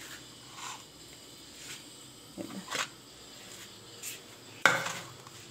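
Hands mixing sliced potatoes in a flour and gram-flour coating in a steel bowl: a few soft, scattered rustles. Near the end comes a single sharp knock, the loudest sound.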